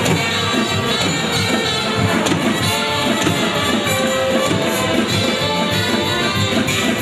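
Loud instrumental accompaniment music with a steady rhythm.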